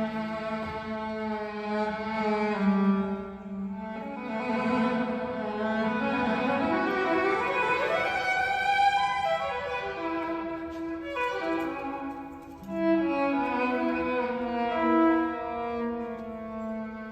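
Instrumental passage of a live song: violin over sustained orchestral strings, with cello and bass below. About six seconds in, the strings sweep upward in pitch before settling into held notes.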